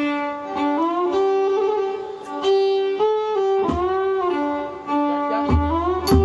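Kantrum ensemble music: a tro fiddle plays a sustained melody with sliding notes, punctuated by a few sharp percussion strikes. A low drum comes in about five seconds in.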